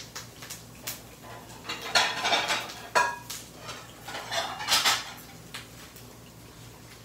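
Plates and cutlery clattering as dishes are handled and set down, in two bouts of clatter with a sharp ringing clink about three seconds in.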